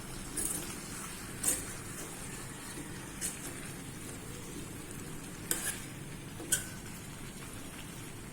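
Sliced young gourd and spices sizzling in oil in a pan while being stirred, with about five sharp clicks of the spatula against the pan.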